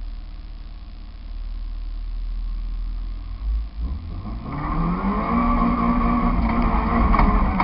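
Nissan Micra 1.3's four-cylinder engine idling, then revving up as the car accelerates away from the start, heard from inside the cabin. The engine note climbs from about four seconds in and holds at high revs.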